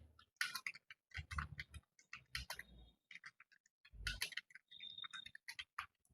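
Typing on an ANT Esports computer keyboard: a faint, irregular run of key clicks.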